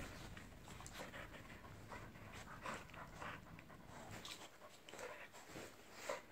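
Two dogs play-wrestling, panting in quick, irregular breaths, with a louder burst near the end.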